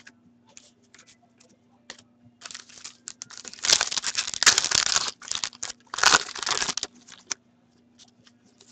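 A hockey card pack's foil wrapper is torn open and crinkled by hand, starting about two seconds in and loudest in two spells near the middle. Light ticks and taps of the cards being handled come before and after.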